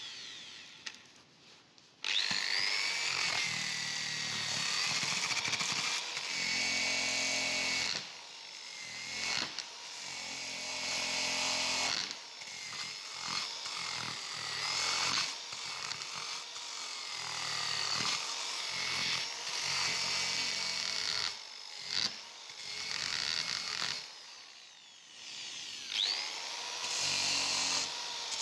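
Electric drill spinning an abrasive wheel against a rusty steel wrench to strip the rust, starting about two seconds in with a rising whine. It runs in stretches broken by short dips, its pitch falling and climbing again as the wheel is pressed onto the metal and lifted off.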